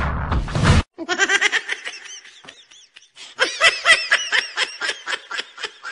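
Music that cuts off abruptly just under a second in, followed by rapid, high-pitched laughter in quick repeated bursts, pausing briefly midway.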